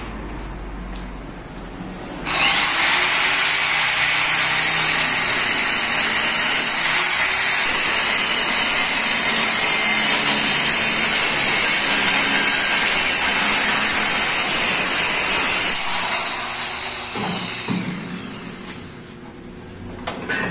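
Handheld angle grinder spinning up about two seconds in and grinding into metal clamped in a vise, a loud steady high-pitched whine and rasp. It stops cutting around sixteen seconds in and winds down.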